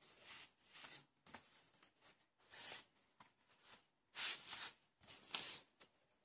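Paper rustling as sheets are shifted and a hand brushes across them: a handful of short, soft rustles, the loudest a little past the middle.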